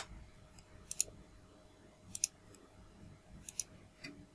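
Computer mouse buttons clicking, a few sharp clicks, some in quick pairs, as elements of a CAD sketch are picked and dimensioned.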